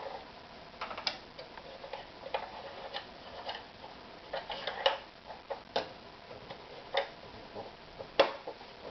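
Scattered light clicks and knocks at an uneven pace, about a dozen in all, with no motor running steadily.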